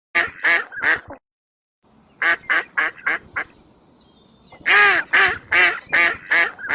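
Waterfowl calling: three short calls, then, after a brief silence, a quick run of about five short calls followed by about five louder ones.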